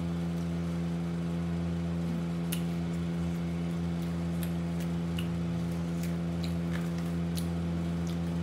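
Steady low mechanical hum of a room appliance, with a few faint short clicks scattered over it.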